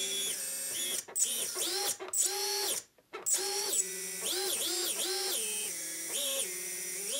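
Small brushless motors of a QAV 250 race quad, running without propellers, whining through a series of short throttle blips: each whine rises in pitch, holds, then cuts off abruptly as the BLHeli ESCs' damped-light braking stops the motors dead. There is a brief pause about three seconds in.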